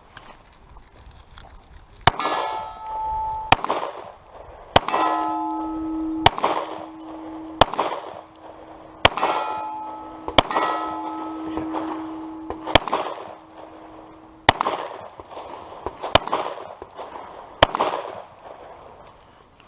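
Pistol shots fired at a steady pace about a second and a half apart, roughly eleven in all. Several are followed by the long metallic ringing of hit steel targets, one ring lasting several seconds.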